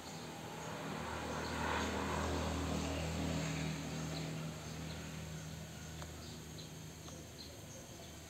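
A low engine hum swells about a second in and fades away over the next few seconds: a vehicle passing. Faint insect chirps sound throughout.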